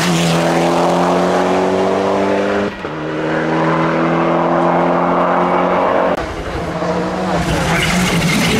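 Rally cars at full throttle in quick cuts: a Mitsubishi Lancer Evolution X's turbocharged four-cylinder engine held high in the revs at a near-steady pitch, then after about three seconds a second Evo X's engine at the same pitch. From about six seconds on, a rougher, noisier engine sound follows as the next car runs.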